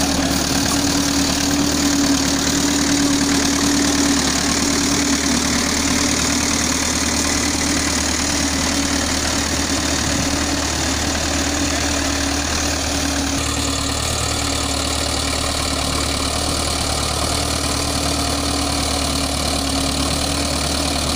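Engine of a fifty-year-old International tractor running steadily at low speed while it pulls a reversible plough, a constant even hum with no change in speed.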